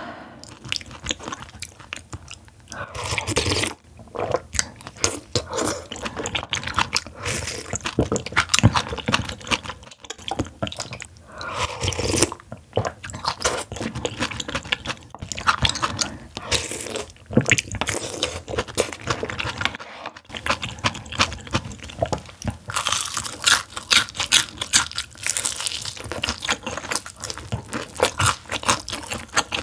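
Close-miked eating: crunching, biting and chewing of crispy sauce-coated fried chicken, with irregular crackly bites. It gets louder and more crackly near the end, as she bites into a piece of the chicken.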